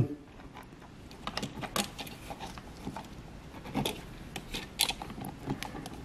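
Faint, scattered clicks and scrapes of a flathead screwdriver and fingers working a plastic paddle light switch and its metal mounting strap, pushing the switch back into the wall electrical box.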